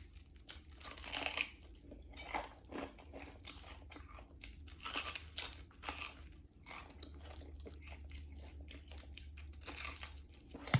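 Close-miked eating of crispy fried pompano: irregular crunching bites and chewing of the crisp-fried fish skin and fins.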